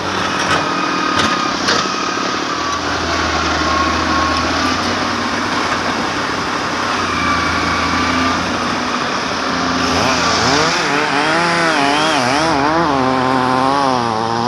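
Logging machinery engines running steadily: a low drone with a thin whine above it. About two-thirds of the way through, music with a wavering melody comes in over the engine noise.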